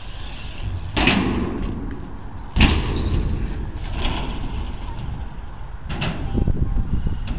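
BMX bike tyres rolling over a skatepark's concrete and ramps with a steady low rumble, broken by three sharp knocks as the wheels hit the ramps, the loudest about two and a half seconds in.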